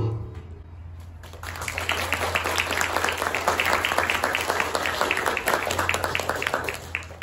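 A student band's last chord fades out, then a small audience claps for several seconds, with single claps standing out, until the sound cuts off abruptly near the end. A steady low hum runs underneath.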